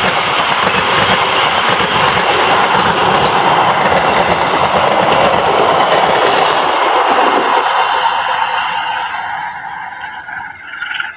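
Passenger train coaches passing close at speed, their wheels running loudly over the rails. The noise fades from about eight seconds in as the last coach pulls away.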